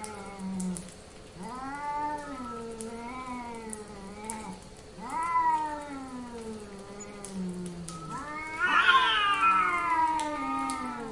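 Cat in heat yowling: three long, drawn-out wavering calls one after another, each bending up and down in pitch, the last one, about eight seconds in, the loudest.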